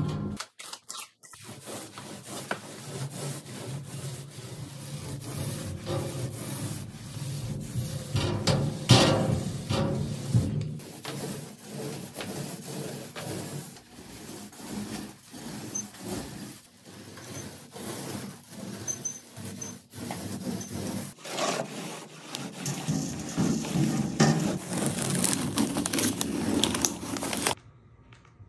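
Steady rubbing and scraping of wall finishing work, including a paint roller rolling paint onto a drywall wall. It cuts off suddenly near the end, leaving quiet room tone.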